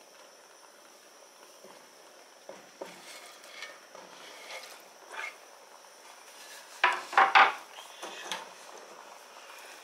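Sliced tomatoes being scraped off a wooden cutting board into a cooking pot: light scrapes and taps of the board and utensil against the pot, with a louder clatter of knocks about seven seconds in.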